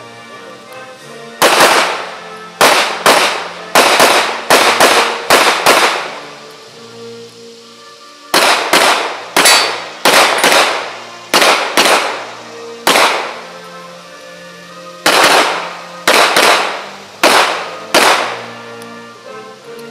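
Handgun shots fired in three rapid strings, about two dozen in all, each crack echoing briefly, over quiet background music.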